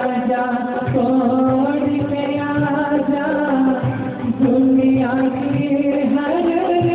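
Male vocalist singing a Hindi film song live into a microphone, holding long, gliding notes over band accompaniment with a steady beat.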